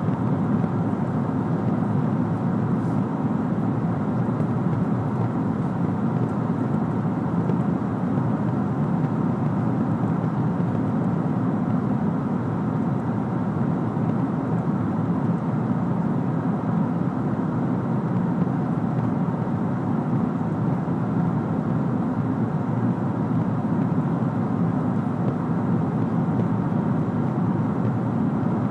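Steady in-flight cabin noise of a Boeing 777-300ER: the even rush of airflow and the GE90 engines heard from inside the passenger cabin, with no change in pitch or level.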